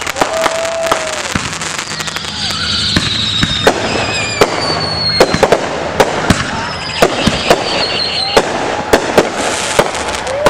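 Fireworks display: a rapid, irregular string of sharp bangs and crackles from aerial shells bursting, with high whistles gliding slowly down in pitch a couple of times.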